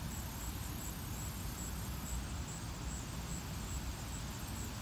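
Outdoor field ambience: insects chirping in a fast, even train of short high pulses over a steady low rumble on the microphone.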